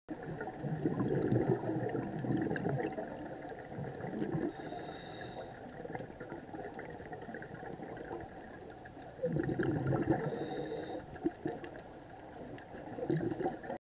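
Underwater sound of a scuba diver breathing through a regulator: two spells of exhaled bubbles rumbling, a few seconds apart, each ending with a brief high hiss.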